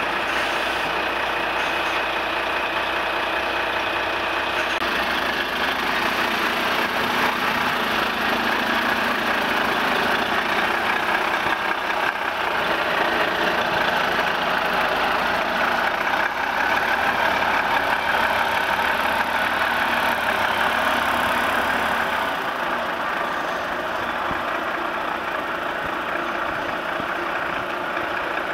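Volvo FH lorry's diesel engine running at low speed as the tractor unit manoeuvres its curtainside trailer, a little louder in the middle and easing off for the last few seconds.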